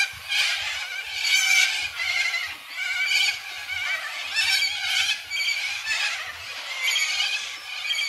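A flock of corellas calling: many overlapping harsh, rasping screeches, one after another every half second or so without a break.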